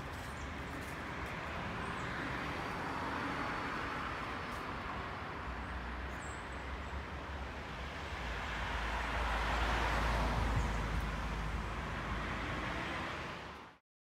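Road traffic: two cars passing, each a swell of tyre noise that rises and fades, over a low rumble. The sound cuts off abruptly near the end.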